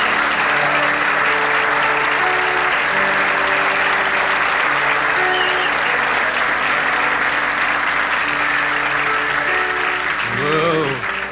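Studio audience applauding steadily, with a few sustained instrument notes from the band held underneath.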